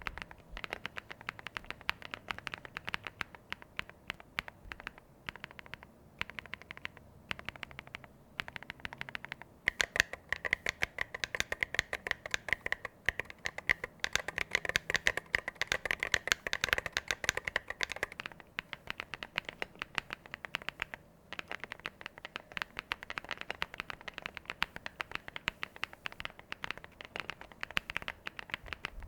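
Typing on a mechanical keyboard fitted with Yunzii MOG keycaps: a quick stream of key clacks with a few brief pauses. The typing gets faster and denser through the middle stretch.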